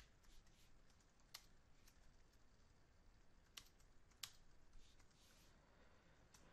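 Faint typing on a computer keyboard: a handful of scattered, soft key clicks over quiet room tone, the sharpest about one and a half, three and a half and four seconds in.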